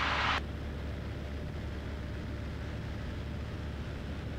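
Cessna 172's piston engine and propeller droning steadily in level flight, heard inside the cockpit. There is a short hiss at the very start.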